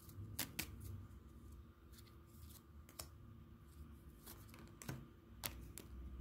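Tarot cards being drawn from the deck and laid down on a wooden table: a scattering of faint, short clicks and taps as the cards are handled and placed.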